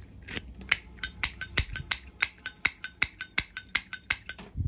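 Brass Zippo lighter lid flicked open and snapped shut over and over: a fast run of sharp metallic clicks with a bright ring, several a second, starting about a second in.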